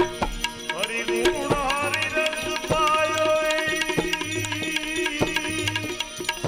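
Devotional bhajan music with no singing: hand-drum strokes keep a steady beat under a sustained melodic line whose pitch slides up and down.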